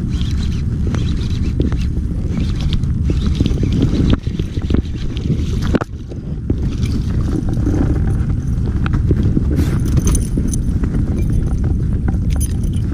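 Steady low rumble with scattered clicks and knocks as a baitcasting reel is wound in and a small fish is handled in a boat.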